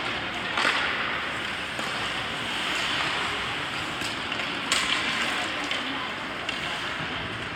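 Ice hockey rink sound during play: a steady scraping hiss of skates on the ice, with two sharp knocks, one about half a second in and one near five seconds in.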